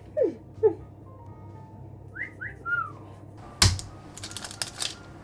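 A few short whistle-like notes sliding up and down in pitch, then a sharp knock about three and a half seconds in and a run of light clicks and taps as cookie dough balls are set onto a parchment-lined metal baking tray.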